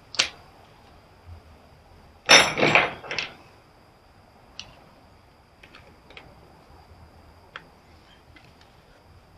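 Metal tools being handled while unbolting an old welder: a sharp click at the start, a loud rattling clatter lasting about a second just over two seconds in, then scattered light clicks and ticks.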